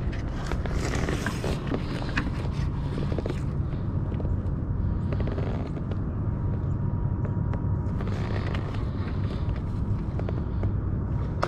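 Handling noise as a large blue catfish is measured on a kayak: scattered light knocks, clicks and rustles of hands, tape measure and fish on the measuring board, over a steady low rumble.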